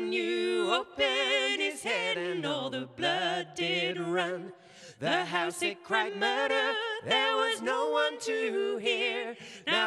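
Unaccompanied folk singing by several voices in harmony, phrases with short breaths between them and a wavering vibrato on the held notes.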